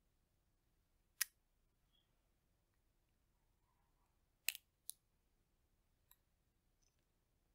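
Roasted chestnut shells cracking between the fingers as they are peeled: a sharp crack about a second in, two more close together around four and a half seconds, and a faint one near six seconds.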